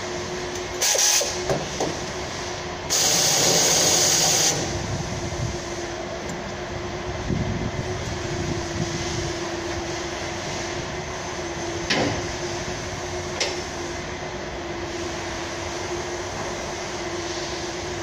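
Steady workshop machinery hum with a constant tone, broken by two loud bursts of hiss, a short one about a second in and a longer one from about three to four and a half seconds. Later come two sharp knocks of tools on metal as a mechanic works on the underside of a Toyota HiAce during a clutch replacement.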